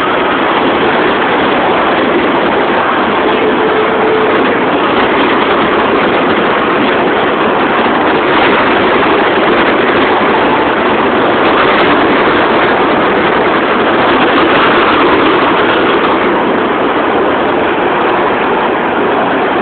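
Miniature kiddie train ride running steadily along its track, a continuous noisy rumble.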